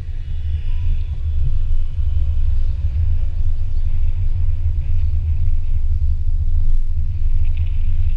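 Steady low rumble of wind buffeting and road noise on a camera mounted on the outside of a moving car.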